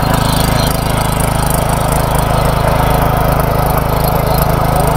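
Mini power tiller's 220 cc engine running steadily under load while its rotary tines dig through soil and weeds, a constant engine hum under a rough churning of earth and blades.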